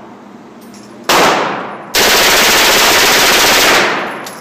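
A fully automatic gun firing at an indoor range: one shot about a second in, then a long burst of nearly two seconds, with the shots ringing off the range walls.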